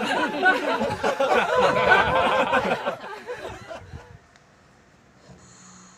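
Close, giggly human laughter in quick rising-and-falling bursts, dying away about four seconds in.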